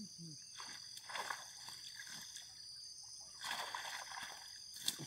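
Water sloshing and splashing in two bursts as a man wades and works a cast net in the water, with a sharp tap near the end. A steady high chirring of crickets runs underneath.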